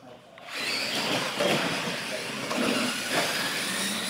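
Radio-controlled monster trucks launching about half a second in and running flat out across a concrete floor: a steady rush of motor and drivetrain noise with tyre noise.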